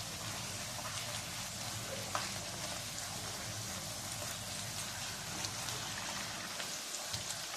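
A poori deep-frying in very hot oil, with a steady sizzle and a few faint crackles as its second side cooks.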